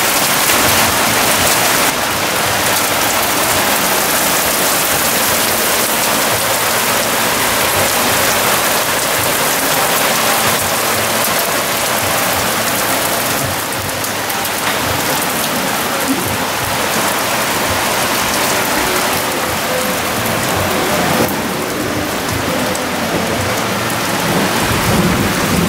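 Hail and rain pelting down steadily on a wooden deck and a gas grill, a dense hiss of small impacts. It eases a little about three-quarters of the way through.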